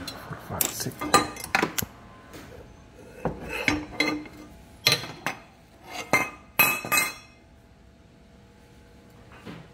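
Metal tools and parts clinking and knocking together, a dozen or so sharp clinks with brief ringing, easing off about seven seconds in.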